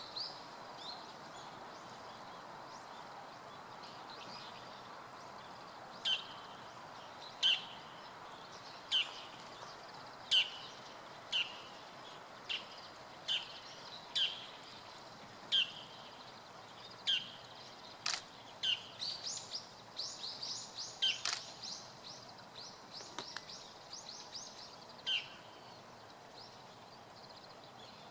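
Bull-headed shrike calling: sharp, high single calls repeated about every second and a half, with quick chattering runs of calls at the start and twice more in the second half, over a steady outdoor hiss.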